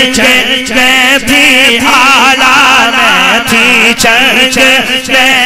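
A man singing a Punjabi naat into a microphone: a long, wavering, ornamented melodic line with no clear words, over a steady held tone beneath.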